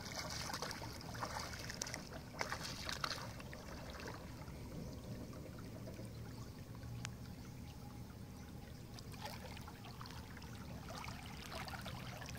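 Water splashing and sloshing around a person wading in a shallow river and hauling in a wet cast net. There are a few louder splashes in the first three seconds, then quieter trickling and sloshing as the net is drawn in and gathered up.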